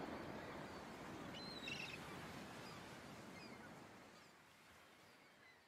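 Faint outdoor ambience fading out: a steady hiss with a few short bird calls, the clearest about one and a half seconds in.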